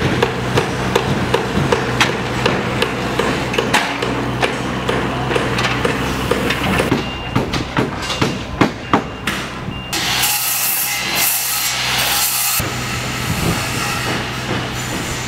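Construction-site work sounds: hammer blows on wood framing, about three a second, over the steady drone of running machinery. Later come scattered knocks, then a loud hiss in several short bursts lasting about two and a half seconds.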